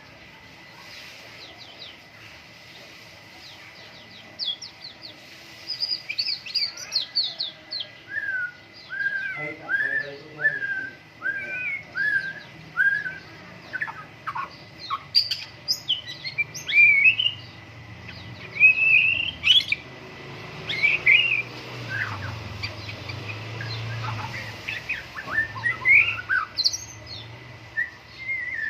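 White-rumped shama (murai batu) singing a varied song of loud whistled phrases, starting a few seconds in, including a run of about eight repeated down-slurred notes and quick high flourishes.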